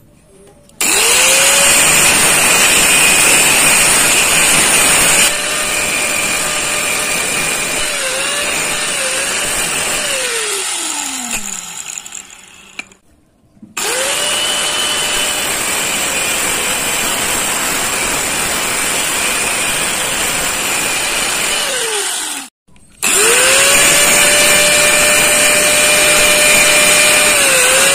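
Electric angle grinder with a thin cutting disc run three times, cutting small aluminium strips: each run spins up to a steady high whine. During the first run the pitch dips briefly under load, then falls away as the motor winds down. The second run stops abruptly.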